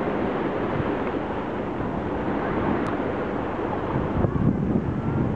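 Wind buffeting the microphone over a steady rush of sea surf, turning gustier and more uneven about four seconds in.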